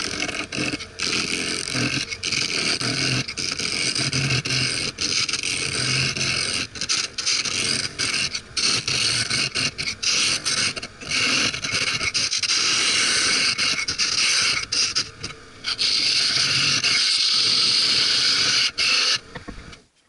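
Wood lathe turning a wooden blank as a hand-held turning tool cuts it. The cut makes a steady hissing scrape with short breaks where the tool eases off, and the sound stops abruptly near the end.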